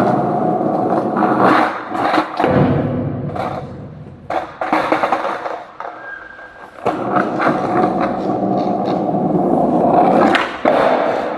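Skateboard wheels rolling over a hard floor in two long runs, with a few sharp clacks of the board between them.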